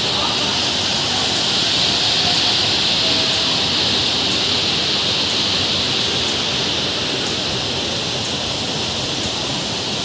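Waterfall rushing steadily, with a high hiss over it that swells a couple of seconds in and then eases.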